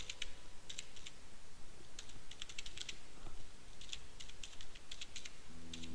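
Computer keyboard typing in short bursts of quick keystrokes, with brief pauses between the bursts.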